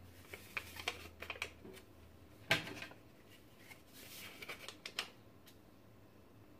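Paper sachets of vanilla sugar crinkling and tapping as they are shaken empty into a Thermomix bowl, in scattered light clicks, with one sharper knock about two and a half seconds in.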